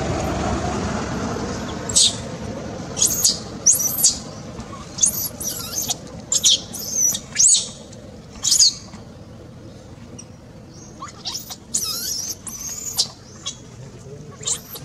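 Baby monkey's shrill distress squeals, short rising-and-falling cries repeated in quick runs while the mother holds and handles it, with a pause in the middle before a few more. A low rumble fades away in the first couple of seconds.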